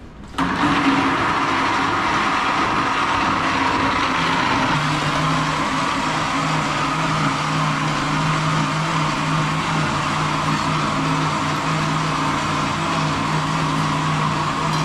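Electric blender running steadily at full speed, whirring as it blends chopped fresh coconut with water into coconut milk. It starts abruptly about half a second in, and its tone changes slightly about four seconds in.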